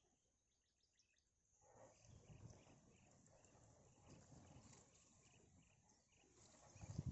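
Near silence: faint outdoor ambience with soft, evenly repeated high chirps, and a low thump near the end.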